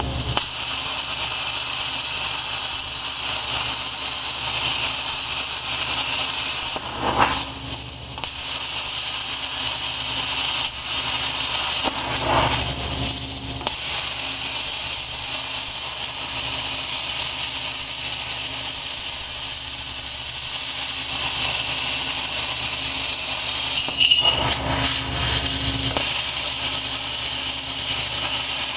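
Hand-held plasma cutter cutting shapes out of metal plate along templates: a loud, steady hiss of air and arc, broken by a few brief dips as the torch moves between cuts.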